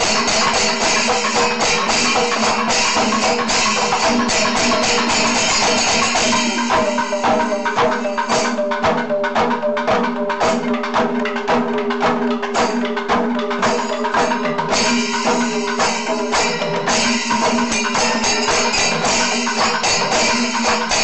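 Panchavadyam temple percussion ensemble playing: hand drums struck in rapid strokes under the constant jingle of ilathalam hand cymbals. The dense cymbal wash thins to sparser, separate strokes about a third of the way in, then builds back to a full, dense rhythm near the end.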